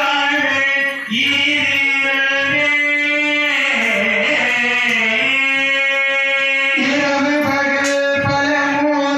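A man singing a devotional verse into a microphone, with long held notes that glide from pitch to pitch.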